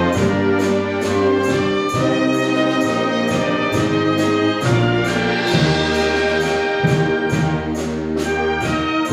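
Concert wind band playing, brass and woodwinds together: sustained chords over a bass line that moves about once a second.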